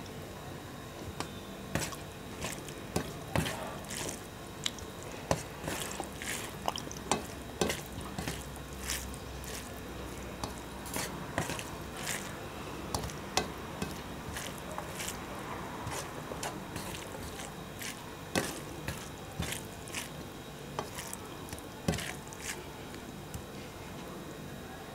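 Wet squishes and sharp little clicks of fingers mixing rice with fish-and-potato curry gravy on a steel plate, several clicks a second.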